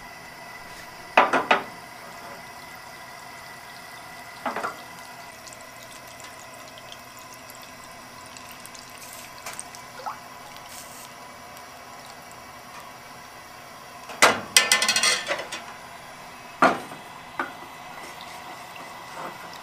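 Cooking in a frying pan on a gas range: several sharp knocks and clatters of utensils against the pan, the busiest cluster about two-thirds of the way in, over a steady hiss with a faint high whine.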